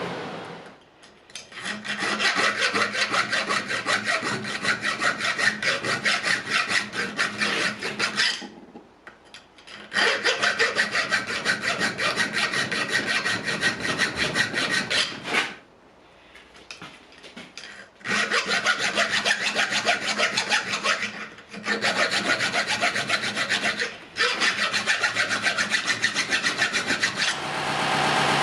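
Hand file being worked across the iron axe head in runs of rapid back-and-forth strokes, stopping briefly several times between runs.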